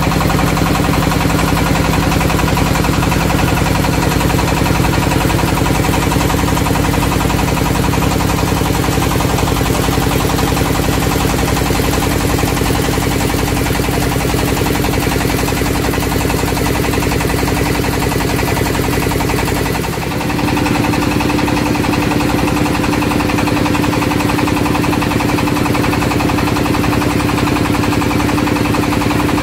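Engine of the small wooden boat carrying the camera, running steadily at close range. About twenty seconds in the loudness dips briefly and the engine settles to a different steady note.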